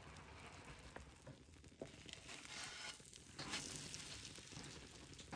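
Butter and brown sugar sizzling under a slice of toast in a nonstick pan as the sugar caramelizes, with a few light spatula taps.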